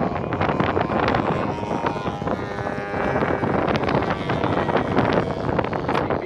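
Wind buffeting the microphone in loud, gusty rushes. A faint steady hum shows through the wind for a second or two in the middle.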